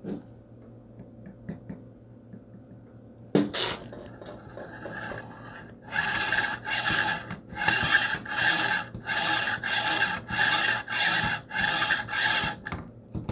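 Steel smooth rod slid back and forth through freshly oiled LM8UU linear ball bearings, a rhythmic metallic rasping of about two strokes a second from about halfway in, working the oil into the bearings. A single knock comes shortly before the strokes begin.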